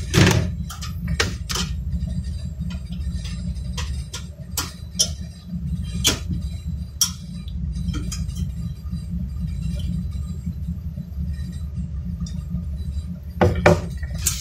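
Scattered sharp clicks and clinks of a hard drive and a screwdriver against a steel desktop computer case as the drive is fitted and screwed into its bay. A steady low hum runs underneath.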